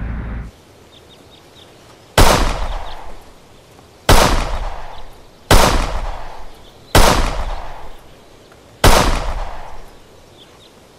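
Five pistol shots fired one at a time, about one and a half to two seconds apart, each a sharp crack that rings out and fades over about a second.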